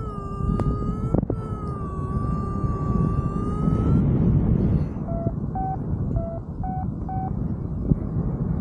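Paragliding variometer sounding over heavy wind noise on the microphone: one steady high tone for about four seconds, then, after a short gap, a run of short beeps alternating between two lower pitches.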